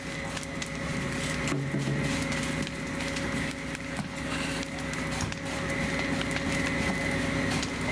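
A wood-frame house fire burning, with irregular crackling and popping over a steady engine drone from the fire apparatus running at the scene.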